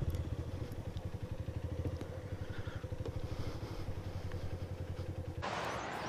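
Vehicle engine running at low speed, a steady low hum with a fast, even pulse. A rushing hiss joins it near the end.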